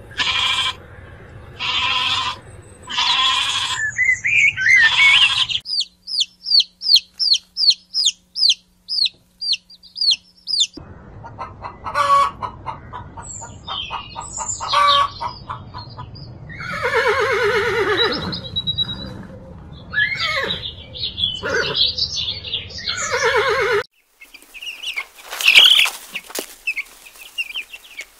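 A run of farm-animal calls: a goat bleating four times, then a bird giving rapid high descending peeps about three a second, then chickens clucking and squawking, and near the end young chicks peeping.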